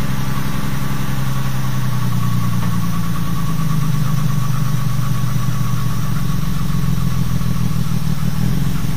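Jaguar Mk2's XK straight-six engine running steadily, its note rising slightly about two seconds in, as the car is backed out with its rear brakes seized solid.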